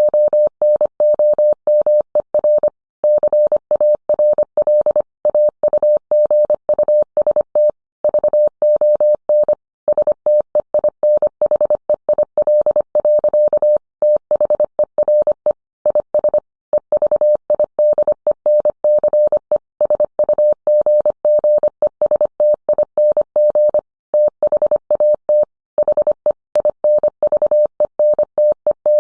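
Morse code sent as a single steady beep, keyed on and off quickly in short and long elements with brief pauses between characters and words.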